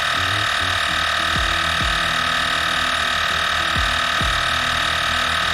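Cordless battery-powered tire inflator running steadily with a constant motor-and-pump hum while it pumps up a trailer tire toward its set pressure. Two pairs of low thumps sound over it, the first about a second and a half in, the second near four seconds.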